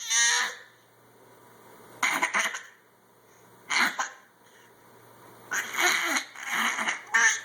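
A baby making short, rough vocal noises in separate spurts, a few at a time with pauses between, the busiest stretch near the end.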